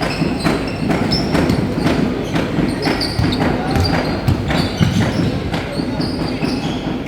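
Basketball game on an indoor court: a basketball thudding on the hardwood floor in irregular bounces, with short high squeaks of sneakers and a murmur of voices around the court.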